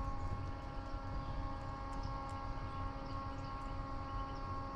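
A steady hum made of several even tones over a low rumble, with a few faint light ticks in the middle.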